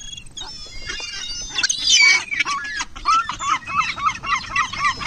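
Seagulls calling: high squeals at first, then from about halfway a rapid run of short repeated calls, about four a second.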